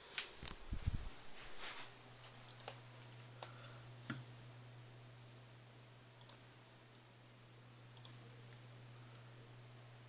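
Computer mouse button clicked twice, a couple of seconds apart, each click a quick press-and-release, over a steady low hum. Before that, near the start, comes a quick flurry of sharp clicks and low knocks.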